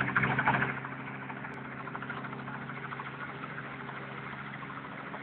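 Helicopter running: a steady engine hum with the fast, even beat of the rotor blades.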